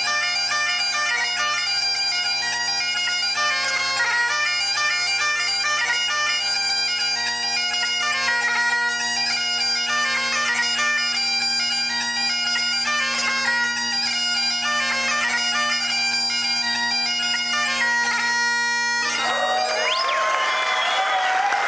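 Great Highland bagpipe playing a quick tune over its steady drones, the chanter stopping about 19 seconds in and the drones dying away a second later. The audience then breaks into applause and cheers.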